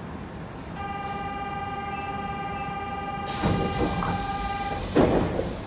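Inside a 70 series subway car stopped at a station: a steady hum from about a second in, then a rush of noise as the car's sliding doors open, ending in a loud thud as the doors reach their stops near the end.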